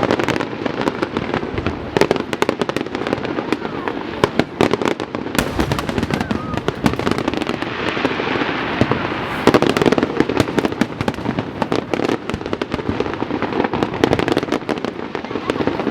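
Fireworks display: a dense, unbroken run of bangs and crackles, with a hissing crackle swelling about eight seconds in.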